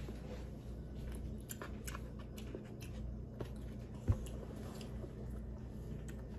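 Quiet eating sounds of a child chewing and handling pancakes at a table, with scattered small clicks and one low thump about four seconds in.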